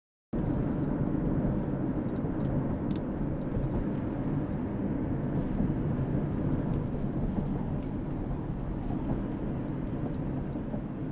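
Steady road and engine noise of a moving car, heard from inside the cabin, a low even rumble that cuts in suddenly just after the start.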